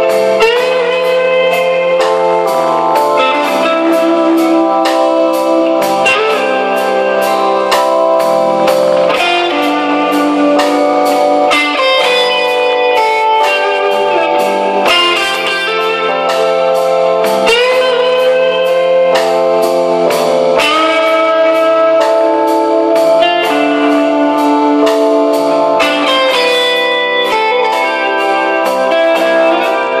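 Live instrumental rock band: an electric guitar plays a lead melody of long held notes, several bent upward into pitch, over a drum kit keeping a steady cymbal beat and bass guitar.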